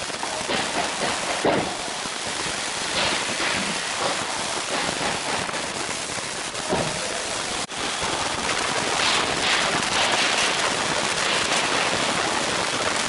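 Steady loud hiss with a few soft knocks and scrapes as laminate floor planks are pushed and fitted together on foam underlay.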